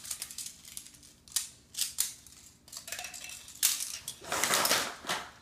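Magformers magnetic plastic pieces clicking together and clacking against a tile floor in irregular single clicks, with a louder, denser stretch of rattling about four and a half seconds in.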